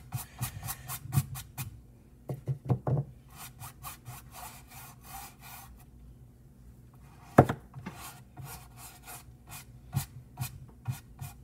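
Paintbrush scrubbing and dabbing on a canvas in quick repeated strokes, about four a second, easing off for about a second midway. One sharper, louder knock about seven seconds in.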